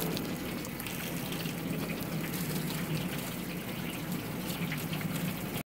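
Water pouring and splashing into a plastic bucket, filling it quickly; a steady gushing that stops abruptly near the end.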